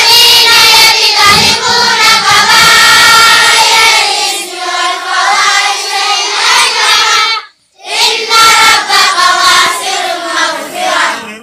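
A large group of children chanting together in unison in long, drawn-out held notes. It breaks off for a moment about seven and a half seconds in, then starts again.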